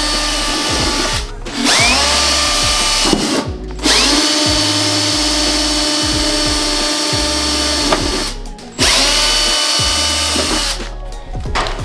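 Power drill with an auger bit boring through a plastic vending-machine panel, running at a steady high speed. It stops briefly three times, each time spinning back up with a rising whine, and cuts off about a second before the end.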